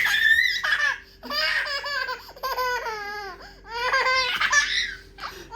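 A small child laughing: a high squeal at the start, then two long runs of rapid, high-pitched laughter with a short pause between them.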